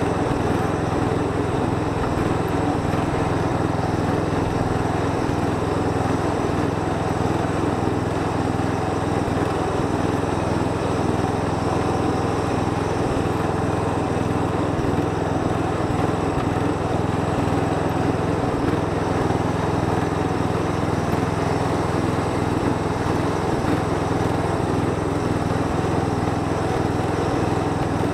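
Castel Garden lawn tractor's engine running steadily as it drives along towing a trailer loaded with firewood.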